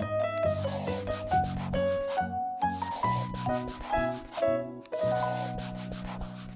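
Scratchy scribbling sound effect of coloring in, in three long strokes, over a simple instrumental tune with a stepping melody and a steady low note.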